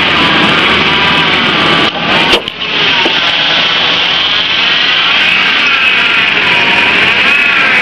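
Ford Ranger engine running with its serpentine belt squealing, a high, wavering squeal over the engine noise that drops out briefly about two seconds in.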